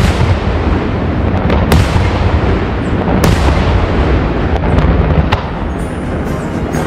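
Daytime fireworks barrage: a dense, continuous rumble and crackle of many bursts, with sharp, loud bangs standing out right at the start, after about a second and a half, and after about three seconds.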